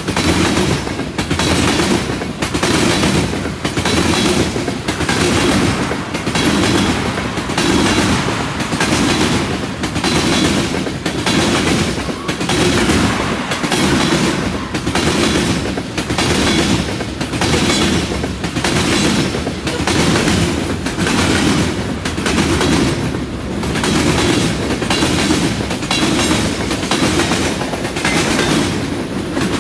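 Freight train cars, mostly tank cars, rolling past with a steady heavy rumble. Their steel wheels clack rhythmically over the junction switch, a little under once a second.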